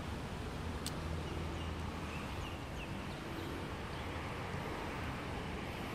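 Wind buffeting the microphone as a steady hiss and low rumble, with a sharp click about a second in and a few faint, short bird chirps around the middle.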